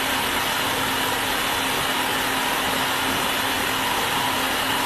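Idealife food processor motor running steadily, its blade grinding beef with ice and seasonings into smooth meatball paste.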